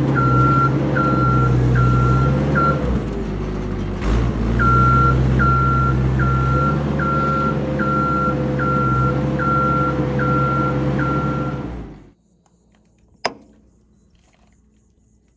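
A vehicle's reversing alarm beeping about once every 0.8 seconds over its running engine. The beeping pauses for a moment and then resumes. About twelve seconds in, the engine shuts off and the sound stops abruptly, followed by a single sharp knock.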